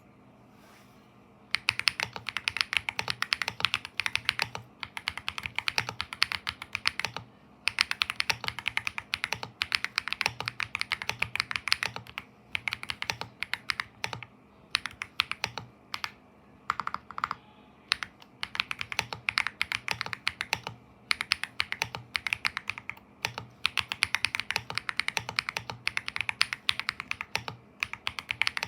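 Typing on a Leobog Hi75 mechanical keyboard with MMD Princess tactile switches and PBT Cherry-profile keycaps, its case modded with PE foam, tape and polyfill. Quick runs of keystrokes with short pauses between them start about a second and a half in.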